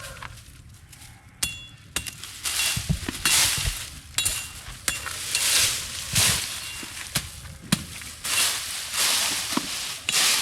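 A hand tool working dry vegetation and stalks: repeated swishing strokes, about one a second, with sharp clicks and a few brief metallic clinks.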